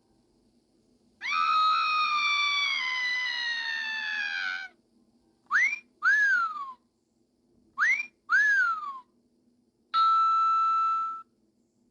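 Sound effect machine playing canned effects: a long descending whistle of about three and a half seconds, then two wolf whistles (a quick rising note followed by a rising-and-falling one), then a steady beep about a second long near the end.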